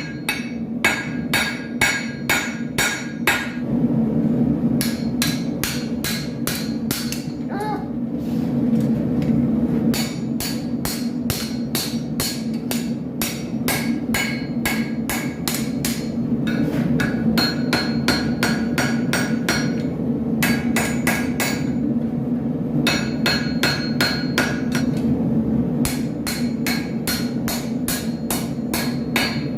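Hand hammer striking steel on an anvil in steady runs of about two to three blows a second, each blow ringing, with short pauses between the runs. A steady low hum runs underneath.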